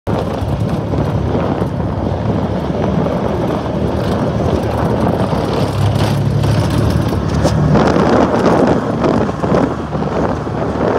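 Can-Am Maverick Sport 1000R side-by-side's V-twin engine running as it drives along a bumpy dirt trail, with wind on the microphone. It gets louder about eight seconds in.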